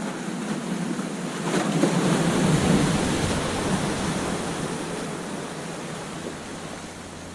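Ocean surf breaking on a sandy beach: a wave crashes about two seconds in, and its wash then slowly fades away.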